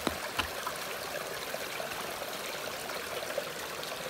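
Running water: a small stream or meltwater trickle, babbling steadily. A couple of light clicks sound in the first half second.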